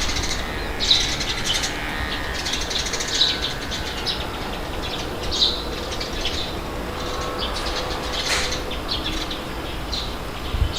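Wind blowing steadily, with small birds chirping in short calls throughout and one sharper call about eight seconds in.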